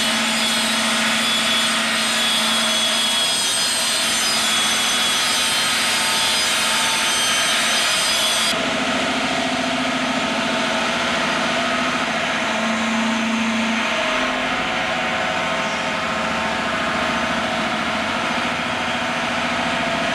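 DTJ 100 handheld electric stone-cutting saw running as it cuts along a stone block, a steady high whine. About eight seconds in, the whine cuts off suddenly and a lower steady mechanical hum remains.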